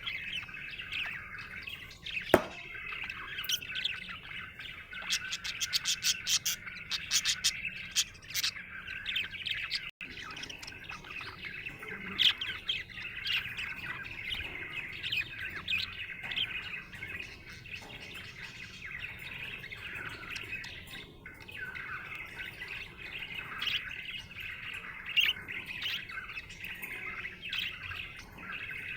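Budgerigar chirping and warbling without a break, with a quick run of sharp clicks about five to eight seconds in and one sharp loud click a couple of seconds in.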